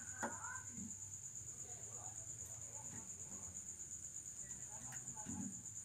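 A steady high trill like an insect's, with faint clicks and rustles from the end of a steel guitar string being handled and twisted between the fingers. A sharp click comes just after the start and another near the end.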